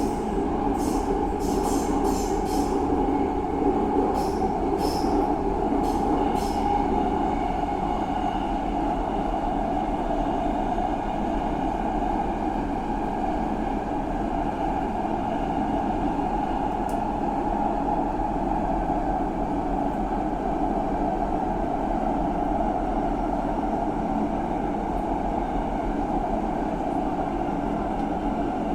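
Subway train running with a steady rumble. A run of sharp, irregular clicks sounds over it during the first seven seconds or so.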